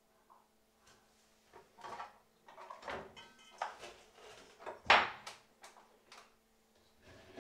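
Clicks, knocks and clatter as a hand mixer is lifted off its stand and its two metal beaters are pushed in and snapped into place, the loudest click about five seconds in. The mixer's motor is not running.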